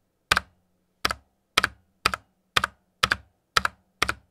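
Epomaker GK96S mechanical keyboard keys struck hard one at a time, eight sharp clacks at about two a second, each with a little ring after it. It is a test of the board for ringing: only a slight ring, and no rattle.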